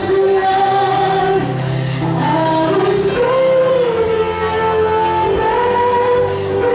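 A choir of voices singing held, melodic notes over backing music, led by a singer on a microphone.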